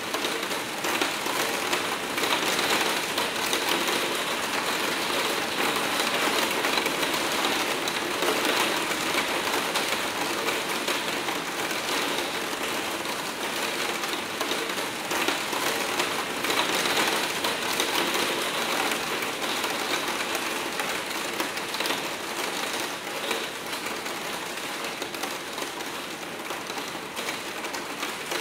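Hard rain falling on a roof skylight, a dense patter of drops on the pane that swells and eases every few seconds.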